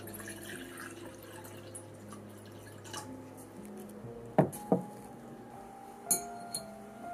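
Two loud water-drip sounds in quick succession about four and a half seconds in, then a light clink near the end as a metal mesh strainer is set into a glass bowl, over soft background music with sustained notes.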